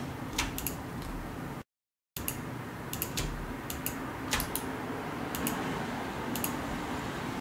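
Scattered, irregular clicks of a computer mouse and keyboard over a steady background hiss, with a brief drop to dead silence about one and a half seconds in.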